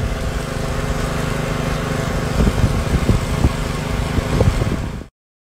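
Small engine running steadily, with a few dull knocks in the second half. The sound cuts off abruptly near the end.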